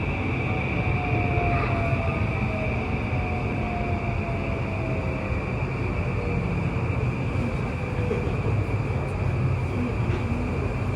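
E235 series 1000 electric multiple unit running on the line: a steady low rumble of wheels on rail, with a faint whine that slides slowly down in pitch.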